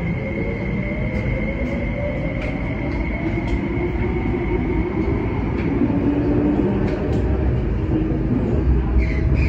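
Kinki Sharyo–Kawasaki electric multiple unit pulling away from a station, its traction motors whining and rising in pitch as it accelerates over a constant rumble of wheels on rail. A steady high tone fades out about halfway through.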